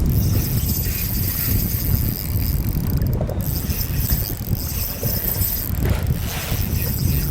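Wind rumbling steadily on the microphone, with choppy water moving around the boat.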